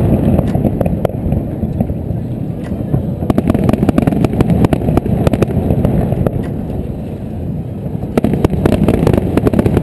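Aerial fireworks going off: a continuous low rumble of shell bursts with many sharp crackling pops.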